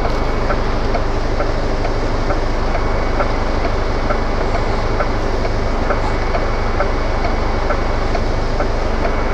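DAF LF truck's diesel engine idling steadily, heard from inside the cab, with the turn indicator ticking evenly over it.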